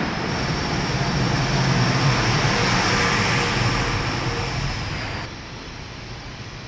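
A large vehicle passing close by: a steady rumble with a thin high whine above it, swelling to a peak about halfway through and then dropping away suddenly a little past five seconds.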